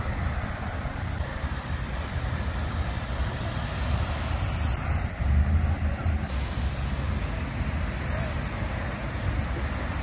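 Water fountain splashing steadily, with a low rumble underneath that swells about five seconds in.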